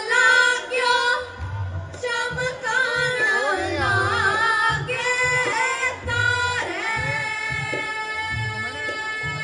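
Music: a sung vocal line with long held notes over a low drum beat about twice a second.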